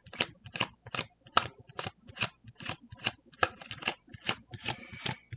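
A deck of tarot cards being shuffled by hand: rhythmic papery swishes, about two to three a second, with a quicker flurry near the end.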